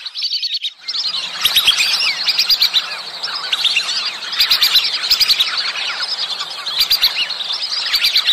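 A flock of lesser whistling ducks calling: many short, high whistled notes overlapping in a dense, continuous chatter, which thins briefly just after the start.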